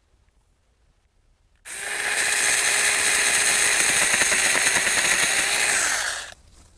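Saker 4-inch 20V cordless mini electric chainsaw starting up about two seconds in, running with a steady high whine for about four and a half seconds, then stopping abruptly.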